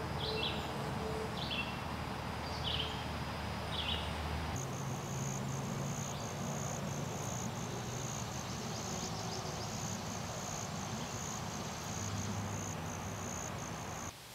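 A bird gives about five short chirps over the first few seconds. Then the sound switches to a steady, high-pitched trill of field insects over a soft outdoor hiss, and it cuts off just before the end.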